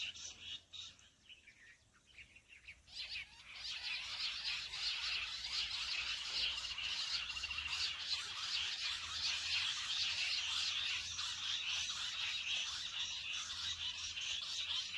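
Dense, high-pitched chirping chorus of birds that comes up strongly about three seconds in and then carries on steadily.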